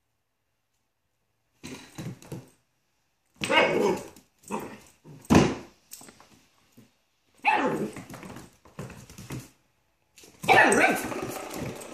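Italian greyhound barking and yipping in play, in short bursts starting about a second and a half in, loudest near the end.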